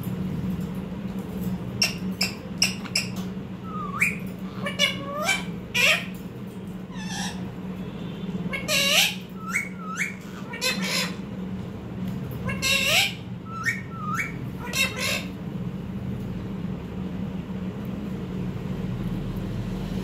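Rose-ringed parakeet squawking: a string of short, sharp calls that hook upward in pitch, mixed with a few clicks, over a steady low hum. The calls stop about three quarters of the way through, leaving only the hum.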